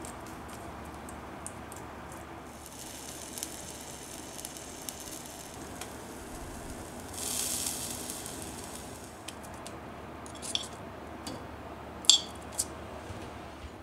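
Small fish sizzling on a wire grill net over a gas burner, with a louder spell of sizzling about halfway through as they are turned with tongs. Near the end come a few sharp clinks of the tongs against the metal grill and a plate as the cooked fish are lifted off.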